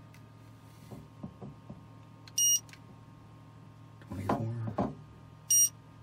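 Mastercraft handheld infrared thermometer beeping twice, about three seconds apart, as readings are taken. A short burst of handling noise falls between the beeps, over a faint steady hum.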